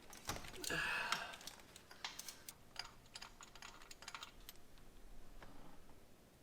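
Small hand tools and metal parts being handled: a short rasping scrape about a second in, then a run of light, irregular clicks and taps.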